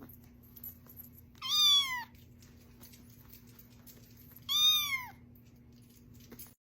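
A cat meowing twice, about three seconds apart, each meow short and high, rising then falling in pitch.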